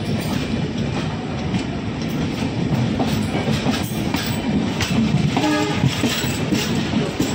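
Passenger train coaches passing close by on the adjacent track: a steady heavy rumble with wheels clattering over the rail joints. A brief horn note sounds about five and a half seconds in.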